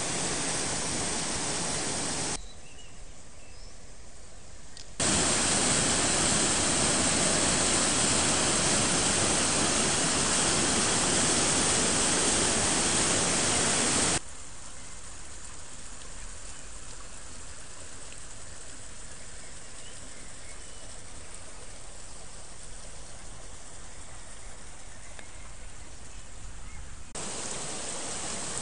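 Creek in flood, fast water rushing and churning, heard as a steady, even rush. It drops and rises abruptly several times, and is loudest for about nine seconds from about five seconds in.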